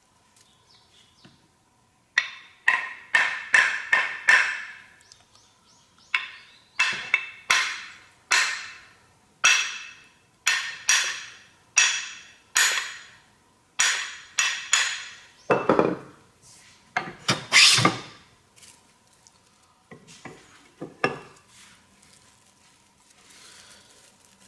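Hand plane with a freshly honed blade taking shavings off a very hard ipe board in quick repeated strokes, each a sharp hiss that fades; the plane cuts cleanly despite the hardness of the wood. The strokes are loudest about 16 to 18 seconds in and stop a few seconds later.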